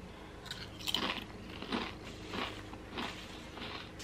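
Crunchy Quest chili lime protein chips being chewed, a soft crunch coming roughly every half second.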